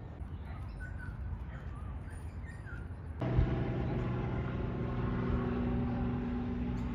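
Birds chirping briefly over a low rumble. About three seconds in, a steady engine hum starts abruptly and carries on at a constant pitch, louder than what came before.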